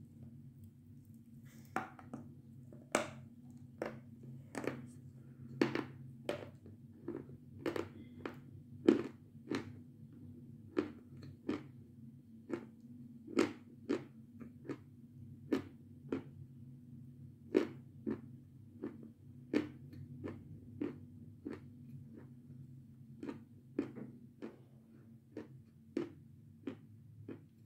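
Close-up crunching and chewing of lumps of Seversky edible chalk, a sharp crunch about once or twice a second as it is bitten and ground between the teeth, over a steady low hum.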